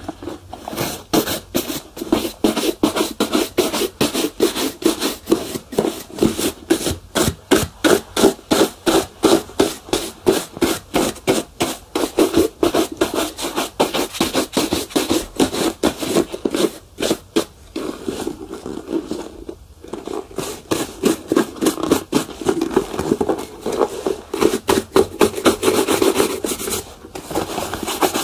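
A shoe being polished: quick, rhythmic back-and-forth rubbing strokes over the leather, about three a second, with a couple of brief pauses past the middle.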